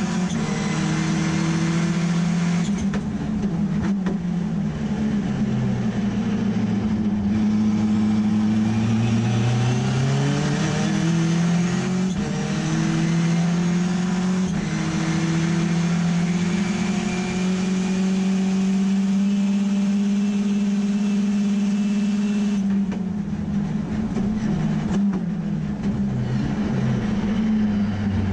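Mazda RX3 race car's turbocharged rotary engine heard from inside the cabin, pulling hard through the gears with a pitch drop at each gear change. It then holds a steady high note for several seconds. Near the end it lifts off, with a few quick blips as the driver downshifts for a corner.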